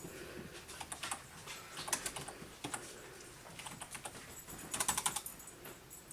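Keys on a small computer keyboard being pressed slowly and irregularly, one at a time, as a child hunts for letters. There is a quicker run of several presses about five seconds in.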